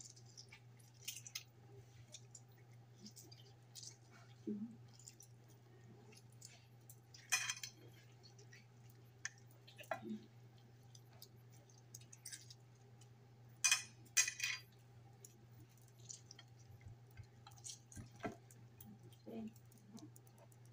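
Hands handling and rubbing a raw chicken in a glass baking dish: scattered soft taps, wet squishes and a few louder clicks of glass, the loudest about two-thirds through, over a steady low hum.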